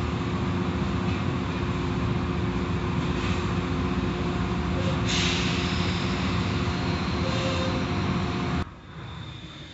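Automatic car wash running, heard from inside the car: cloth curtains and brushes sweep over the soapy windshield and roof amid water spray and the steady hum of the wash machinery. A brighter hissing stretch comes about five seconds in, and the noise drops off sharply near the end.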